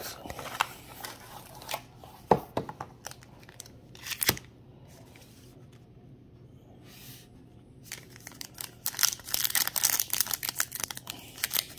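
Cardboard trading-card box being opened and handled, with a few sharp knocks in the first half. After a quiet pause, a foil card-pack wrapper crinkles densely as it is handled and torn open.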